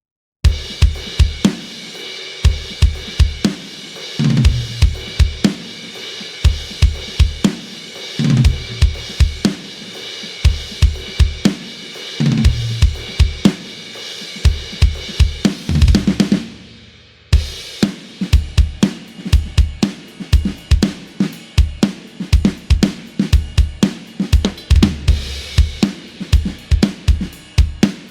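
Sampled pop-punk drum kit from the EZdrummer 3 Pop Punk EZX library playing a fast, driving beat: kick and snare under a constant wash of cymbals and hi-hat, with a fill down the toms about every four seconds. The beat stops for about half a second around two-thirds of the way through, then comes back in busier.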